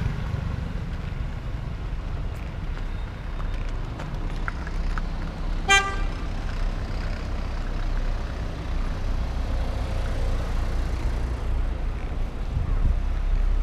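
Street traffic: a steady low rumble of passing cars, with one brief vehicle horn toot about six seconds in.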